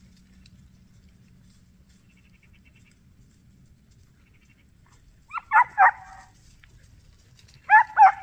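Hunting dog barking during a hare hunt: quiet at first, then three quick barks about five seconds in and two more near the end.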